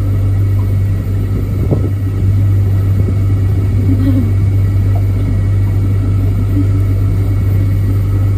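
Small hired motor boat's engine running steadily: a loud, even low drone with no change in pitch.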